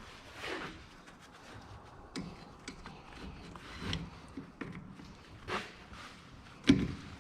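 Scattered handling noises: light clicks, rustles and knocks, with one sharp knock near the end.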